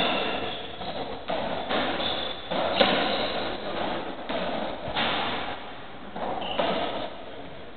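Racketball rally on a squash court: the ball cracking off rackets and the walls about once a second, each hit echoing in the enclosed court, with short squeaks of shoes on the wooden floor between hits.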